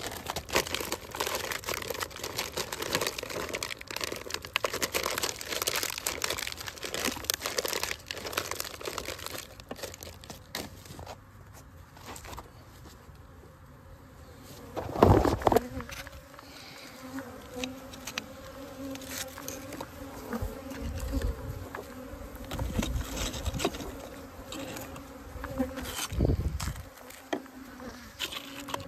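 Honeybees buzzing in a steady hum around the hive, with frequent clicks and rustling from handling the hive and one loud thump about halfway through.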